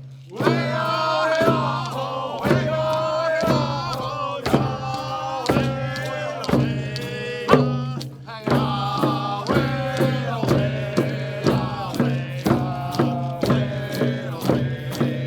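Voices chanting a song over a steady drum beat, about one beat a second.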